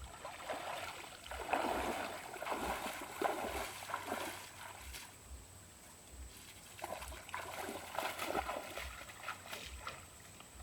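Shallow water splashing and sloshing in two spells, the first about half a second in and the second around seven seconds in.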